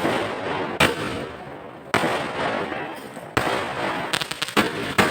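A series of sharp bangs about a second apart, each followed by a hissing rush of noise, with a quick rattle of cracks about four seconds in.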